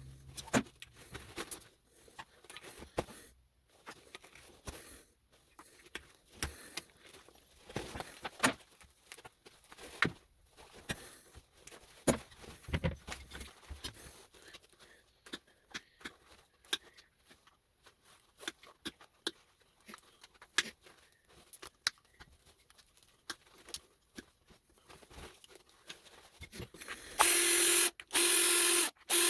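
Irregular small clicks, taps and knocks of hand tools working apart copper and brass electrical connectors. About two seconds before the end a small electric motor starts, much louder, running in short bursts with brief breaks and a steady hum.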